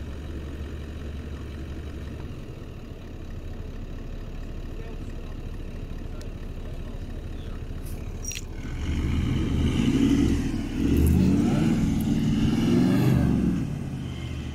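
Toyota LandCruiser 76-series V8 turbo-diesel idling, then revving hard for about five seconds from around nine seconds in as it reverses up a soft sand dune track, its pitch rising and falling under load before easing off.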